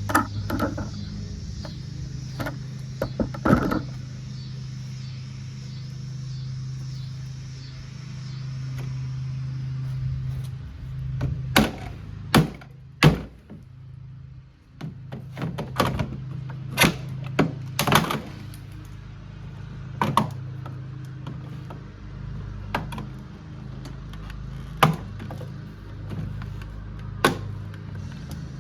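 Repeated sharp knocks and thuds of blows striking a Kuppet portable washing machine's plastic body as it is smashed apart. The blows come irregularly: a few near the start, then a denser run through the second half.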